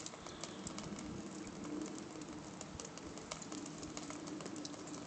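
Faint, low, drawn-out cooing of a dove, with light scattered ticks.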